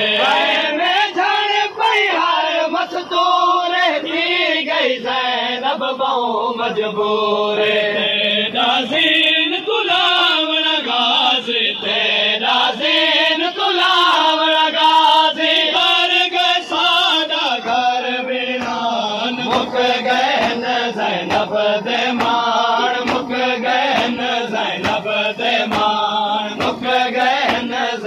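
Men chanting a noha, a mourning lament, with a lead reciter's voice over the crowd. In the second half a steady beat of hand slaps keeps time with the chant: mourners beating their chests in matam.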